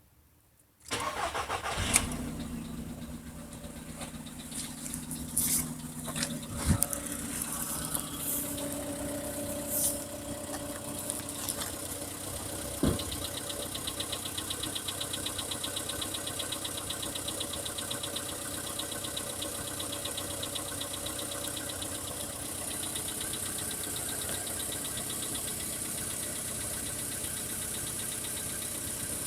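VW Polo Sedan engine cranking and catching about a second in, then idling cold with a fast, even knock: the knock it makes when cold. A few sharp clicks stand out over the idle in the first half.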